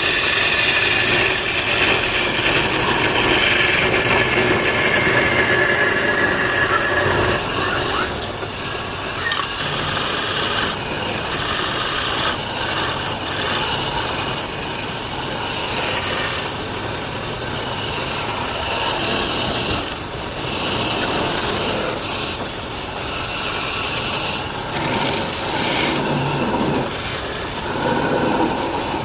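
A woodworking power tool cutting and rasping wood, with a whining pitch that slides down over the first several seconds, then uneven scraping and grinding as the tool works the piece.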